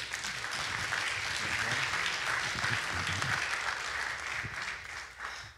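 Congregation applauding steadily, dying away near the end.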